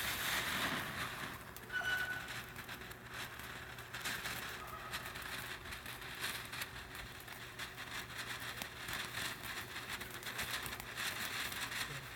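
Small consumer firework hissing and crackling, with many quick pops, louder for the first couple of seconds and then a steady fainter crackle.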